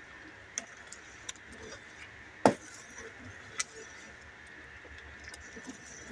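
Metal spoon stirring thick champorado (chocolate glutinous-rice porridge) in a stainless steel pot, knocking against the pot: four sharp clinks, the loudest about two and a half seconds in, over a faint steady hiss.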